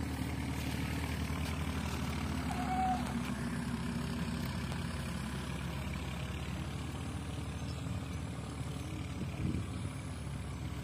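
An engine running steadily with a low, even throb.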